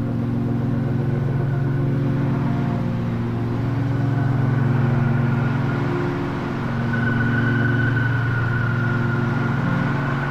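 Electroacoustic drone music: a dense low hum with several held tones layered above it, and a high thin tone that swells about seven seconds in.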